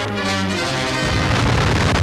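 Brass-heavy orchestral music that breaks off about a second in for the blast of a huge TNT explosion, a dense, continuous rumble with a heavy low end.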